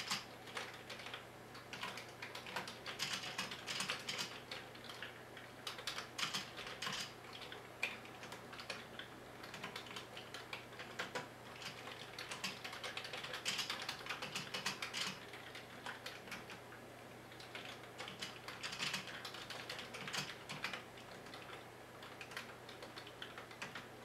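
Typing on a Commodore 64 keyboard: quick key clicks in bunches, with short pauses between them.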